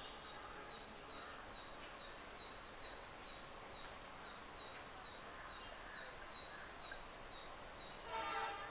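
Quiet outdoor ambience with a small high chirp repeating about three times a second, and a brief louder sound about eight seconds in.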